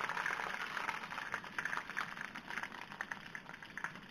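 Banana leaves crackling and sizzling in a hot, oiled wok as a hand arranges them: an uneven patter of small ticks over a light hiss.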